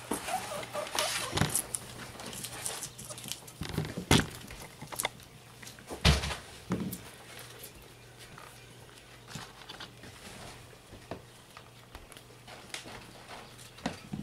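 Guinea pigs chewing cucumber: a run of small wet crunching clicks, with a few louder knocks about four and six seconds in.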